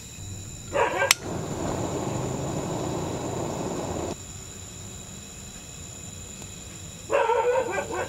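Gas burner under a steamer: a sharp click about a second in, then a steady rushing hiss for about three seconds that stops suddenly. A dog barks just before the click and again near the end.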